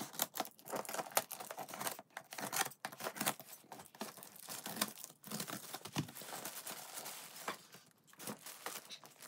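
Scissors cutting through packing tape on a cardboard box, with tape tearing and cardboard flaps rustling and crackling in irregular bursts as the box is opened; near the end a plastic bag crinkles as the wrapped toy is pulled out.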